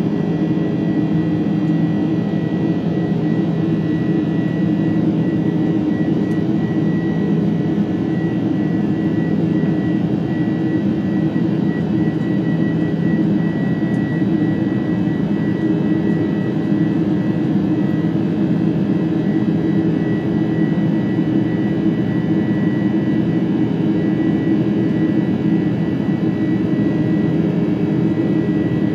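Boeing 747-400's General Electric CF6-80C2 turbofan engines running steadily, heard inside the upper-deck cabin as a loud, even rush with a low hum and a thin steady high whine.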